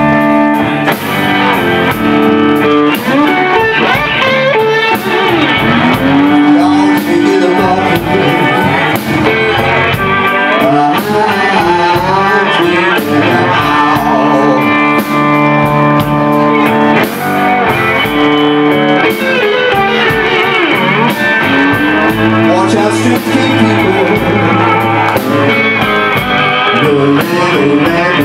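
Live blues band playing an instrumental break: electric slide guitar lead with gliding, bending notes over bass guitar and drums.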